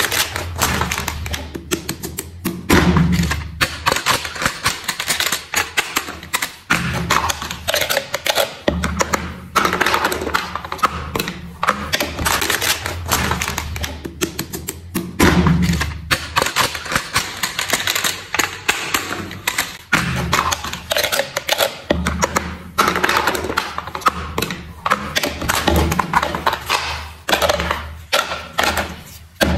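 Hard plastic toy pieces being handled: a dense run of clicks, taps and knocks as plastic parts and small plastic cubes are picked up, set down and knocked together.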